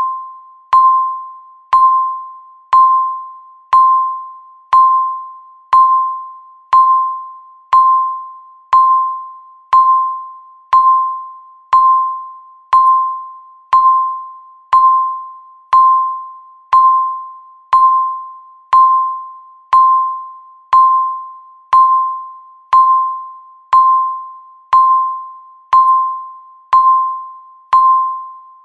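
Countdown timer's electronic beep, one short tone each second, each starting sharply and fading away before the next.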